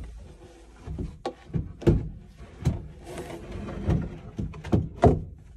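A chair being handled, turned upside down and set into place: a series of knocks and bumps, about half a dozen over several seconds, with a short scrape a little past halfway and the loudest knock near the end.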